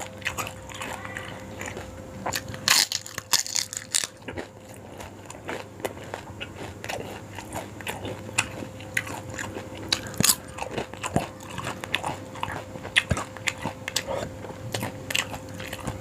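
Close-miked eating of yong tau foo: irregular biting, crunching and wet chewing clicks, with a louder burst of crunches about three seconds in.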